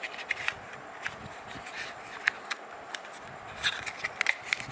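Handling of unboxing packaging: scattered light clicks, scrapes and rustles of plastic and cardboard as the earbuds are handled, getting busier near the end.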